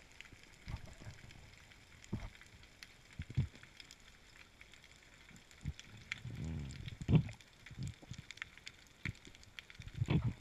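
Underwater sound picked up by a diver's camera in a kelp forest: faint scattered clicks and crackle with low knocks and thuds, and a longer low burble about six to seven seconds in.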